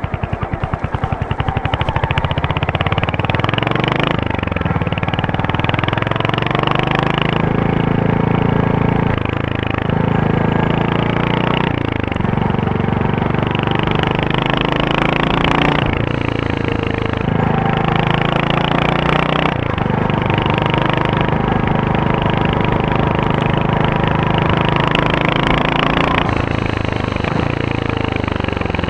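Royal Enfield Hunter 350's single-cylinder engine and exhaust thumping at low revs for the first few seconds, then revving up and dropping back several times.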